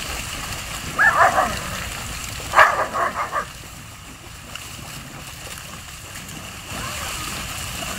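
German Shepherd dogs barking while they splash in a fountain pool: one bark about a second in, then a quick run of about five barks around three seconds in, over steady splashing water.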